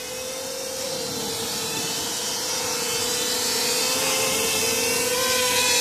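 QAV250 mini quadcopter's motors and propellers buzzing steadily in flight, the pitch wavering slightly as it holds its hover. It grows gradually louder toward the end.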